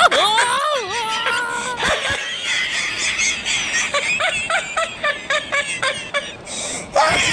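A person laughing: a long sliding vocal cry for the first two seconds, then a run of short repeated laughs, about three a second.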